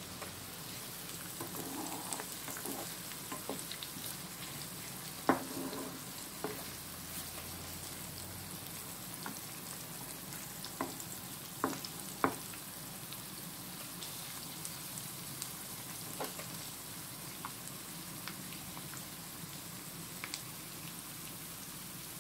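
Sliced onions frying in cooking oil in a non-stick pan, still pale at this early stage, with a steady sizzle. A wooden spatula stirs them, knocking and scraping against the pan now and then, sharpest about five and twelve seconds in.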